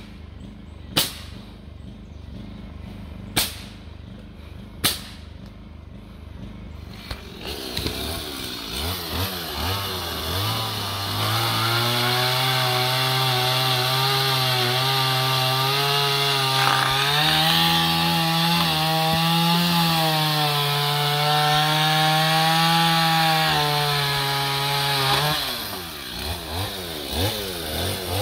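Four sharp knocks in the first five seconds, then a two-stroke chainsaw starts, revs up and runs at high speed for about fifteen seconds with its pitch wavering, before dropping back to a lower, uneven speed near the end.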